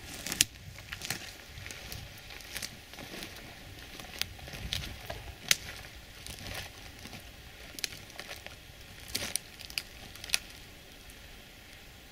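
Irregular rustling crackles and a dozen or so sharp clicks over a faint steady background.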